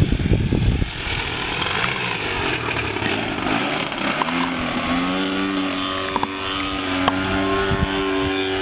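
The 30cc two-stroke gas engine of a radio-controlled Yak aerobatic model plane running through a beer-can muffler. About four seconds in its tone comes through clearly, drops a little in pitch, then holds steady.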